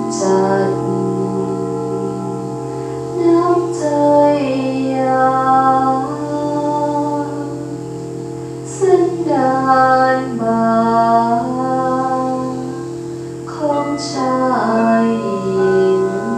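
Crystal singing bowls holding steady, overlapping ringing tones, with a slow sung melody over them. New phrases enter about every four to five seconds, each starting with a brief bright, chime-like attack.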